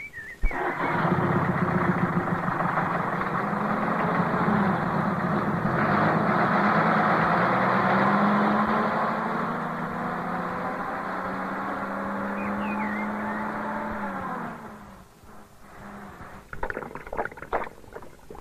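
A bus engine running steadily as the vehicle pulls away, a loud drone that drops in pitch and fades out about fourteen seconds in. After it, a few faint knocks and scrapes.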